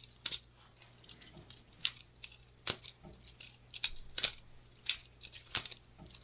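Boker Plus balisong butterfly knife being flipped by hand: an irregular string of sharp metallic clicks and clacks, about one or two a second, as the handles swing open and shut around the blade.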